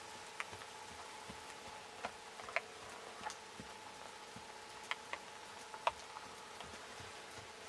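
Faint, scattered sharp clicks of a ridden horse trotting on a sand arena, from its hooves and tack, over a steady faint hum and hiss.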